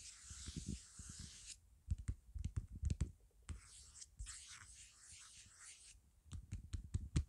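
Close-miked hand handling noise: fingers rubbing and scratching, alternating with runs of soft low taps and knocks as a phone and a clip-on microphone are handled. The rubbing fills the first second and a half and the middle; the taps come about two seconds in and again near the end.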